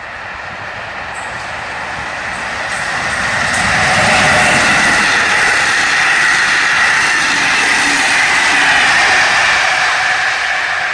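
An electric locomotive-hauled passenger train passing close by. The running noise of the wheels on the rails grows over the first few seconds, stays loud while the coaches go by, and eases slightly near the end.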